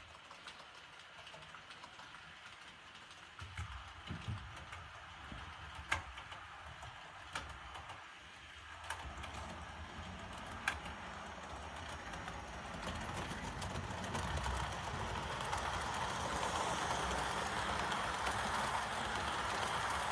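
Roco model IC 2000 double-deck train running on the layout track, faint at first and growing steadily louder over the last several seconds as it comes close. A few sharp clicks break in during the first half, likely its wheels over rail joints and turnouts.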